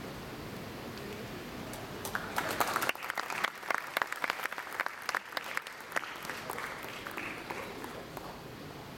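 Audience applause: a crowd clapping that breaks out about two seconds in, is loudest in the middle and dies away near the end.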